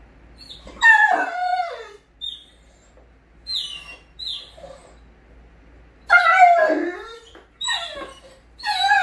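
Dog whining in excitement: drawn-out whines that slide down in pitch, with a few short, high whimpers between them.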